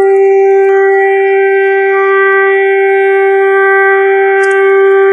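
Chinese air-defence pre-warning siren (防空预先警报), the preliminary air-raid alert, sounding one loud, steady tone that holds its pitch throughout.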